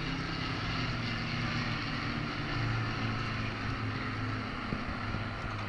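Two Avro Lancaster bombers flying past together, their four-engined Rolls-Royce Merlin V12 piston engines making a steady low drone that swells a little in the middle.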